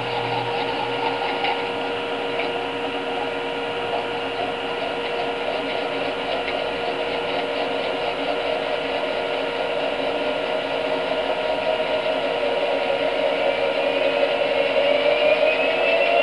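NSD Powerball wrist gyroscope whirring as its rotor is kept spinning by circling the wrist, growing slowly louder. Near the end a whining tone rises in pitch as the rotor speeds up.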